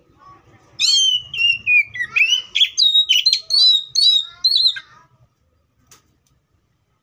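Oriental magpie-robin singing one phrase of about four seconds, starting about a second in: a note sliding down in pitch, then a quick run of varied whistled and chattering notes. A single click follows near the end.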